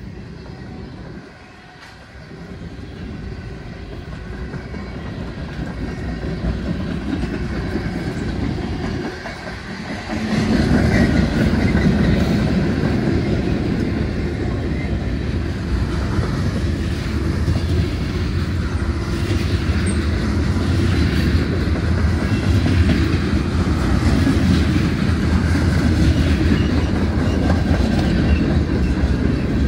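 Freight train cars rolling past close by: a steady noise of steel wheels running on the rails, which gets louder about ten seconds in.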